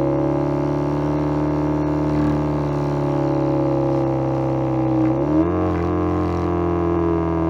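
Homemade electronic sound effect imitating the exhaust note of a Subaru EJ20 boxer four with equal-length headers. It drones steadily at one pitch, then about five seconds in rises quickly, like a light blip of revs, and holds at the higher pitch.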